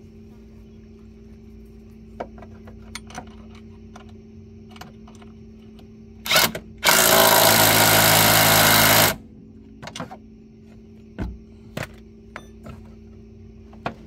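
Impact wrench tightening a bolt on a winch mount: a short blip about six seconds in, then a steady run of about two seconds. Light clicks and clinks of tools and hardware before and after.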